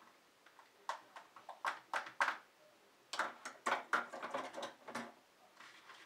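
Kitchen dishes and utensils being handled and set down: a quick, uneven string of knocks and clinks.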